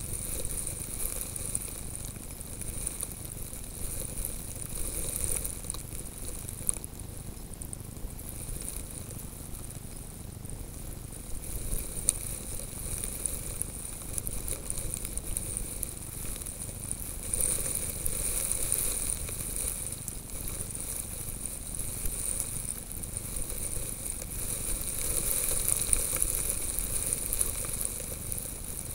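Steady crackling hiss of wind and blowing snow on a camera lying in the snow, with scattered sharp ticks of grains hitting it. It swells about two-thirds of the way through and again near the end.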